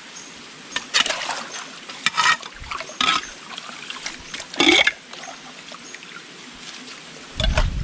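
Hands digging and scooping through shallow stream water, about five separate splashes over a faint trickle of water.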